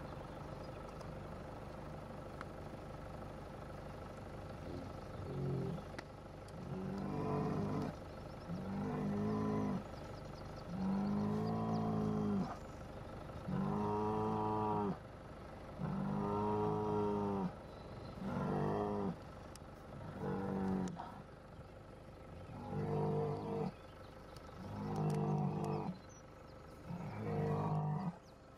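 Marchigiana bull bellowing over and over: a series of about ten deep calls, each lasting a second or so, starting about five seconds in and repeating every couple of seconds.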